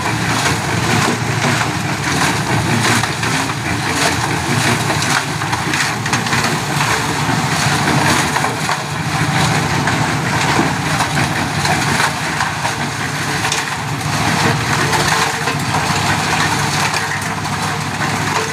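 Portable concrete mixer running steadily: its small engine turns the drum as wet concrete and gravel churn inside with a constant rattle.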